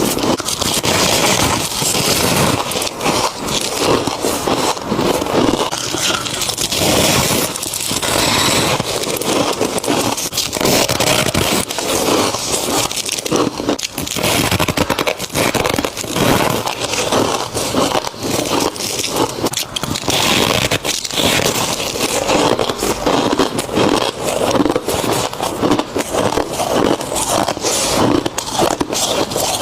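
Freezer frost crunching as it is eaten, close-miked: a dense, continuous crackling and scraping without pauses.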